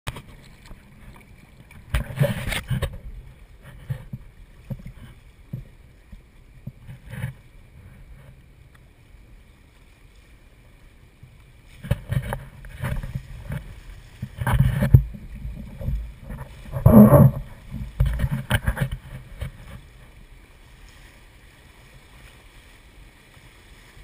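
Paddles splashing and knocking against an inflatable raft as a crew paddles, heard as irregular bursts over a faint steady background, most of them in the second half. About 17 seconds in there is one louder, briefly pitched sound.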